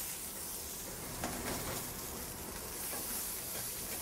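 Mixed baby vegetables sizzling in hot olive oil in a sauté pan on a gas range, a steady frying hiss just after they have been added to oil heated toward its smoke point. A light knock about a second in.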